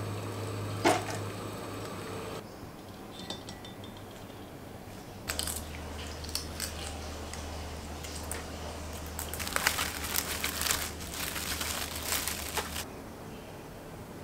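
Boiled eggshells being cracked and peeled by hand, a run of crisp crackling clicks that grows densest about ten seconds in. Before it, for the first couple of seconds, a steel pot of water with eggs in it is boiling.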